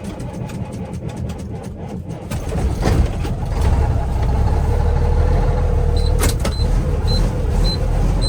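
Semi-truck diesel engine cold-starting in freezing weather: the starter cranks it over rapidly for about two seconds, then it catches and settles into a steady idle. A few seconds later a high warning beep starts repeating about twice a second.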